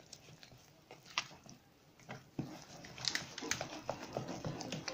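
Gram flour and yogurt being stirred together in a glass bowl: faint, irregular clicks, scrapes and soft wet squelches of a utensil working the thick batter. They grow busier about halfway through.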